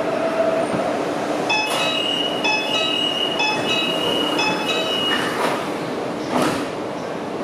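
Door-closing chime of a CRRC Changchun-built metro train, a chime blending Hong Kong and Mainland styles: a run of high electronic beeps lasting about three and a half seconds, then the sliding doors shutting with a whoosh and a thump about six seconds in, over the steady hum of the car's ventilation.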